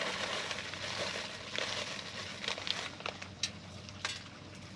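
Small polished decorative stones (ruby and black onyx) handled and scattered as top dressing around potted succulents: a gritty rustle of stones for about three seconds, then three sharp clicks as single stones drop into place.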